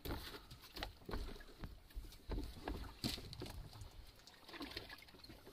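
Small wooden fishing boat drifting at sea: water slapping and sloshing against the hull, with irregular knocks and clatter from gear and a bucket being handled on deck.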